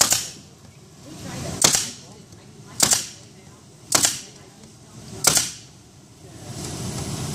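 Pneumatic stapler firing staples into wooden beehive frames: five sharp shots about a second and a quarter apart, each snap trailing off briefly. The air pressure is set a little too high, and the staples are splitting the frame wood.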